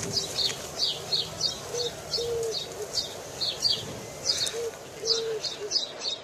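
A dove cooing in short low notes, several times, over a steady run of high, scratchy paired chirps repeating two or three times a second.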